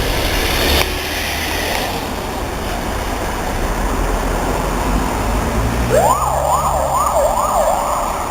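Vehicle and road noise, then about six seconds in a VW Transporter ambulance's electronic siren comes on. It starts with a rising sweep and goes into a fast yelp, rising and falling about two to three times a second.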